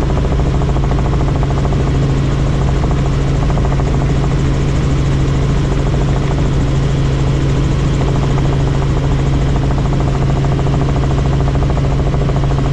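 Helicopter in flight: a loud, steady drone of rotor and engine with a fast, even pulsing.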